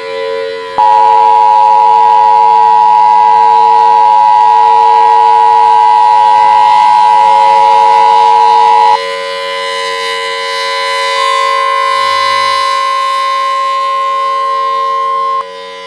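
Emergency Alert System-style attention signal: a loud steady two-note tone for about eight seconds, then a quieter single steady tone that cuts off near the end. A siren sounds underneath throughout.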